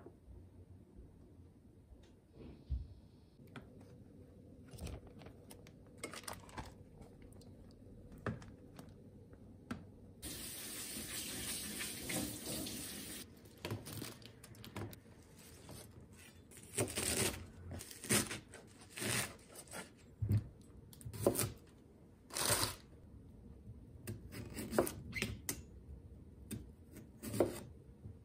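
Kitchen tap running for about three seconds, a third of the way in, followed by a string of separate knocks and clunks of a stainless mesh colander and a kitchen knife set down and handled on a wooden cutting board.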